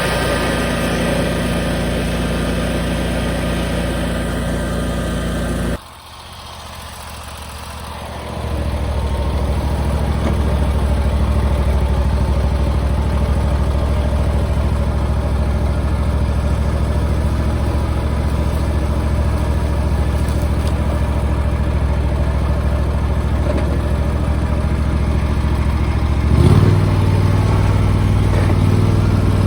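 A vehicle's engine running steadily, a low drone that cuts off abruptly about six seconds in, builds back up over the next couple of seconds, and shifts in tone near the end.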